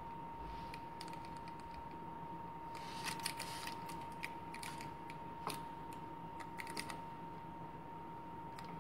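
Faint rustling and light clicks of hands pulling and knotting thick 6 mm cotton macramé cord, in small clusters. A faint steady high hum sounds underneath.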